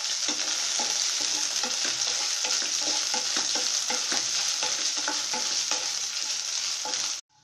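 Dried anchovies sizzling in hot oil in a nonstick pan, stirred with a wooden spatula that scrapes and taps against the pan. The sizzle cuts off suddenly near the end.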